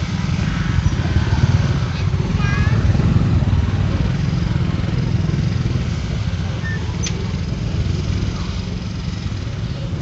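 Steady low engine rumble of vehicles moving at walking pace: the truck carrying the sound system, with motorcycles riding close alongside.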